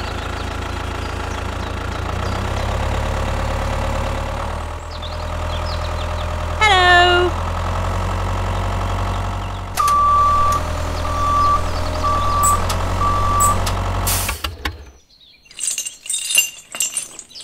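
Tractor engine running steadily, with a vehicle's reversing beeps sounding four times and a short falling pitched sound just before them. The engine cuts out suddenly about three-quarters of the way in, leaving faint bird chirps.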